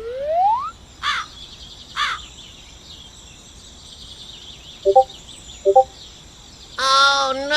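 Birds calling: a rising call at the start, short calls and chirps over a steady high-pitched background, then a long harsh caw near the end.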